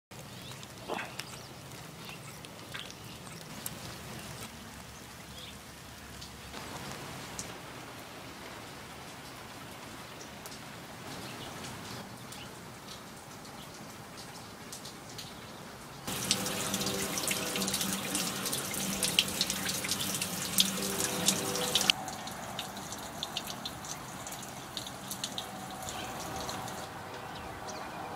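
Rain dripping and pattering on pavement: a steady hiss dotted with small drip ticks. About halfway through, a louder, hissier stretch of some six seconds comes in, carrying a low steady hum.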